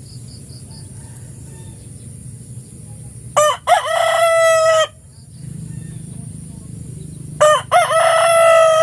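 Rooster crowing twice, about four seconds apart. Each crow is two short notes and then a long held final note, over a steady low background noise.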